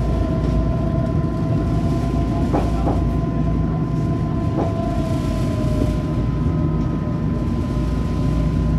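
Eurotram tram running on its rails: a steady low rumble with a constant electric whine from the traction drive, and three short clicks a few seconds in.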